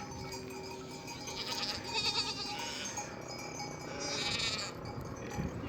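Sheep bleating from a flock: two quavering bleats, about two seconds in and again about four seconds in.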